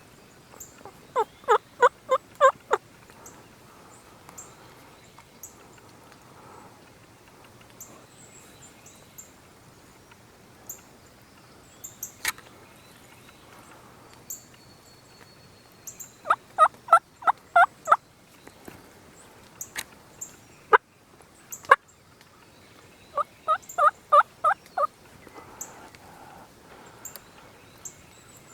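Wild turkey gobbler gobbling three times, each gobble a quick rattling run of about six notes. A few sharp single clicks fall between the gobbles.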